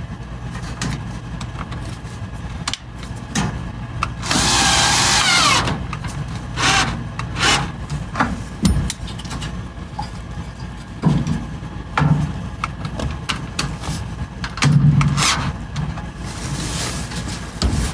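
A power drill-driver run in several short bursts, the longest about four seconds in with a falling whine as it slows, among handling clicks and knocks, over a steady low hum.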